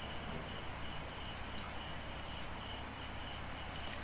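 Insects chirping in a steady background chorus, high held tones that come and go in short spells. A few faint wet clicks from a hand moving through a tub of small raw fish.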